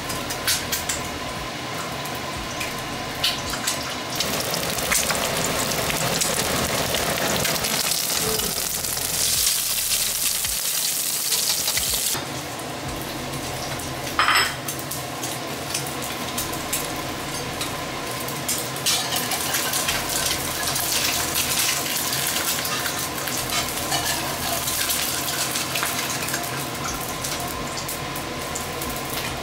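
Eggs frying and sizzling in a pan, with a spatula stirring and clinking against the pan. There is one sharp clack about halfway through.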